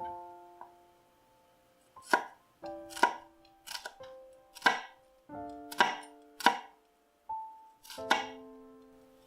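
Knife cutting crisp fresh vegetables on a cutting board: about seven separate crisp cuts, unevenly spaced about a second apart, over soft plucked background music.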